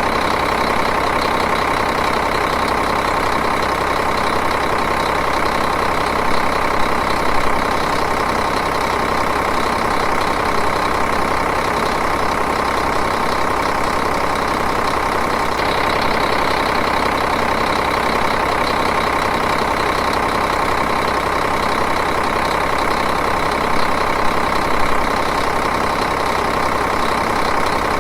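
Diesel engine idling steadily, an even, continuous running sound with a fine regular pulse.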